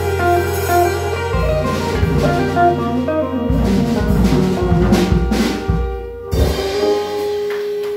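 Live small jazz band playing: electric guitar and saxophone over deep bass notes and a drum kit. About six seconds in the band stops together, and one long note is held to the end as the tune closes.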